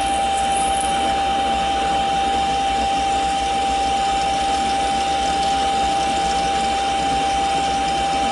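Mini lathe running under load as a parting blade in a spring tool holder cuts into a 1-1/4 inch 1018 steel rod: a steady high whine over an even machining noise. It holds level with no rhythmic chatter, a smooth parting cut.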